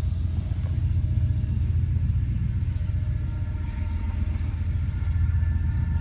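Steady low rumble with no clear pitch and no distinct events.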